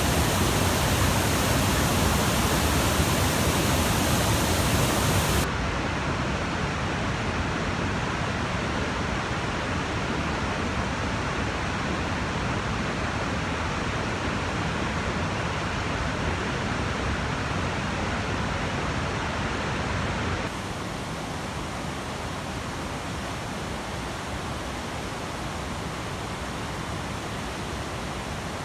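Muddy floodwater in flash flood, rushing over a waterfall and down a swollen river: a steady, loud rush of water. It drops a step in level about five seconds in and again about twenty seconds in.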